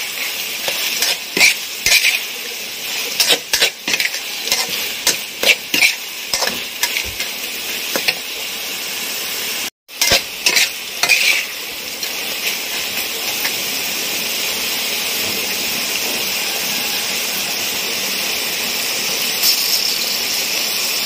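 Green chafer beetles frying in a metal pan: for the first ten seconds a spatula scrapes and clinks against the pan over the sizzle. After a brief dropout, the sizzling goes on steadily with only a few clinks as the beetles fry toward crisp.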